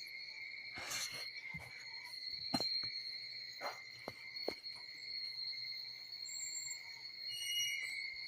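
Steady high-pitched insect trill, with a few faint clicks and knocks and a brief higher chirp near the end.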